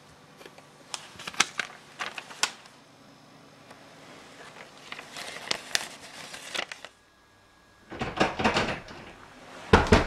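Handling noise: a few sharp clicks and knocks, then paper rustling for a second or two, then a run of louder knocks and clatter near the end.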